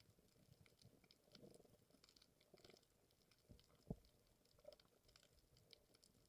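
Near silence: faint scattered clicks and crackles, with one soft low thump about four seconds in.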